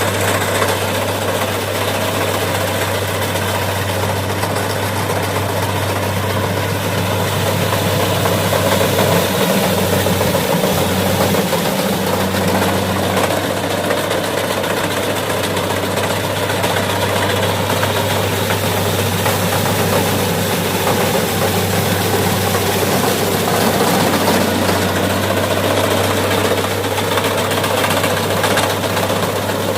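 A heavy diesel engine idling steadily, a constant low hum that holds one speed throughout.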